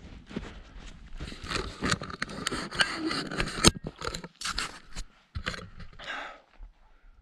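Footsteps crunching and scraping in snow, irregular and uneven, dying away near the end.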